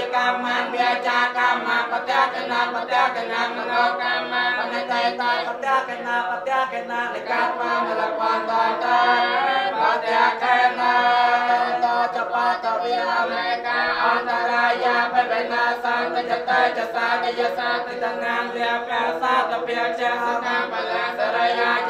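Buddhist monks chanting blessing verses together in unison, their voices amplified through handheld microphones; the group chant runs on without a break.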